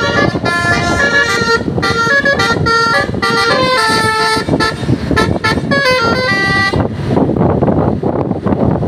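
Bus telolet horn on the TKM Utama bus playing a quick multi-note 'basuri' melody, several horn tones sounding together and changing pitch every fraction of a second. The tune stops about seven seconds in, leaving a loud noisy rumble.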